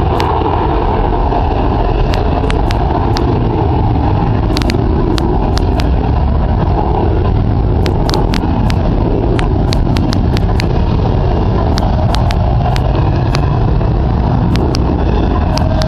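F-16 Fighting Falcon jet flying overhead: loud, steady jet engine noise that does not let up.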